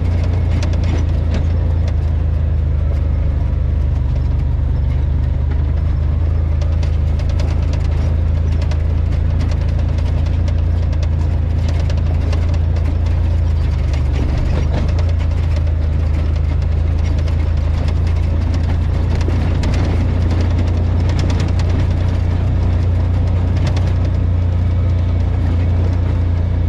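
Side-by-side UTV's engine running at a steady low drone while it drives along a rough dirt trail, with scattered light clicks and rattles over it.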